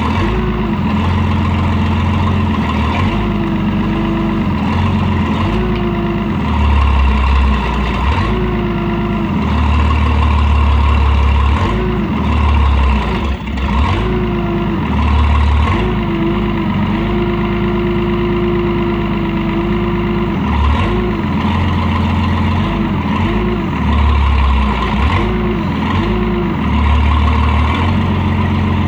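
IH 3616 backhoe's engine running steadily, its note swelling and dropping again and again as the hydraulics are worked, with a whine that comes and goes in short stretches.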